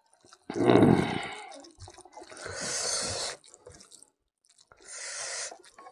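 A hand mixing and squeezing rice with cooked mithun (gayal) intestine and crumbly topping on a wooden plate, wet squishing and crackling. It comes in three bursts of about a second each, the first the loudest.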